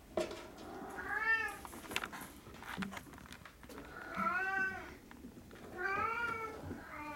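Norwegian Forest Cat kittens meowing: three drawn-out meows, each rising and then falling in pitch, with a few light knocks in between.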